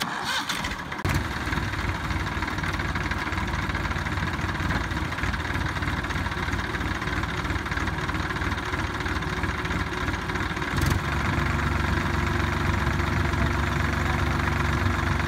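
Diesel tractor engine running steadily while hitched to pull a second tractor that is stuck in mud. About eleven seconds in, after a short click, its note turns louder and deeper.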